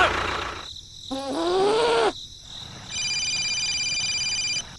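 A brief sound effect with a wavering, sliding pitch, then about a second later a steady electronic phone ringtone that lasts under two seconds and cuts off.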